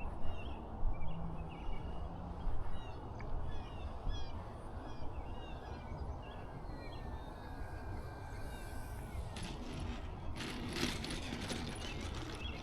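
Wind rumbling on the microphone with small birds chirping in the background; a few short clicks near the end.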